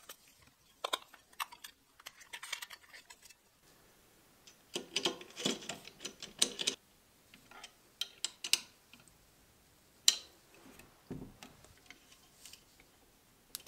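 Plastic spool-holder arms being handled and fitted onto a 3D printer's aluminium top frame: scattered light clicks, knocks and rattles of plastic and small hardware, with a sharper click about ten seconds in and a duller knock just after.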